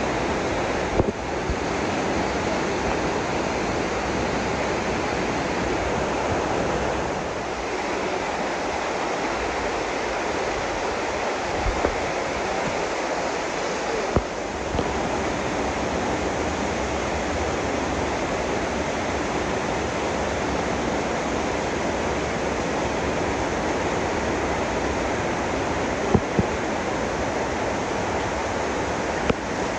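Steady rush of flowing water, the stream running through the cave, with a few brief knocks.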